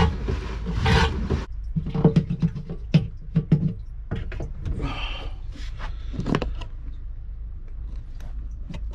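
Manual bilge pump being worked by hand: rhythmic whooshing strokes about once a second that stop about a second and a half in. Scattered knocks and clatter follow over a steady low hum.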